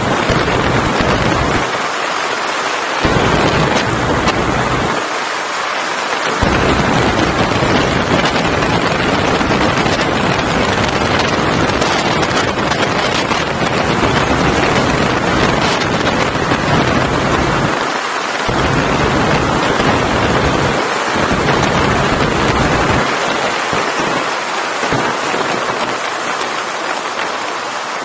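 Heavy wind rushing over the microphone of a camera mounted on a moving motorcycle. It is a loud, steady rush, and its low rumble drops away briefly several times.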